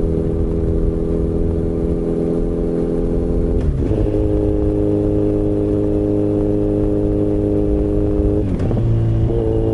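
Kawasaki Z900RS inline-four engine running through an aftermarket MAVERICK slip-on silencer while the bike cruises in sixth gear. The steady engine note shifts briefly twice, once about four seconds in, rising a little, and again near the end, dropping back.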